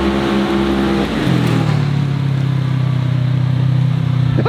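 Pickup truck engine running steadily. About a second in, its pitch drops to a lower, steady note.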